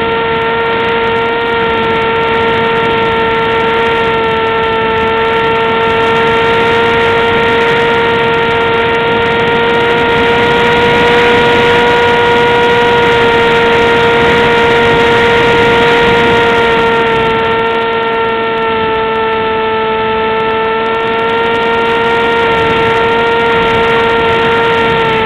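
RC airplane's motor and propeller heard from a camera mounted on the plane: a loud, steady whine over rushing air, rising slightly in pitch and loudness about halfway through as the throttle changes, then easing back.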